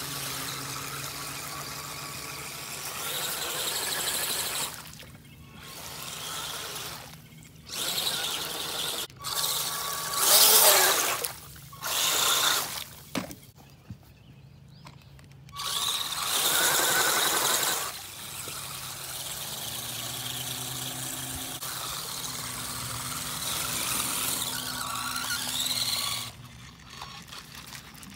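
An HBX Transit RC crawler's electric motor and gears whine steadily in low range as it drives in water. Over the whine come several bursts of its big inflated tires churning and splashing the water, the loudest about ten seconds in.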